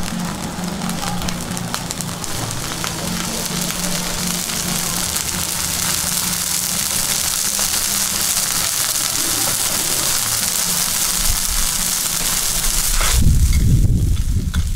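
Lala clams sizzling in a hot wok over a gas burner, a steady frying hiss that grows louder over the first half. About thirteen seconds in the hiss falls away and a low rumble takes over.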